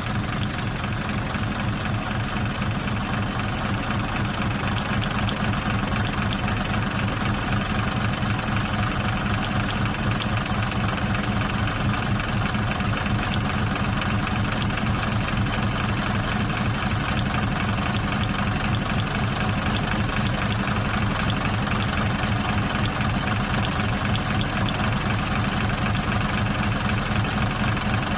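Antique car engine idling steadily, with an even, rhythmic exhaust beat.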